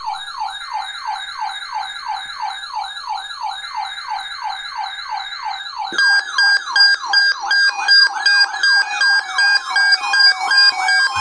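Electronic siren-style alert tone: a rapid, repeating falling sweep, about three a second. About six seconds in, louder steady beeping tones join it.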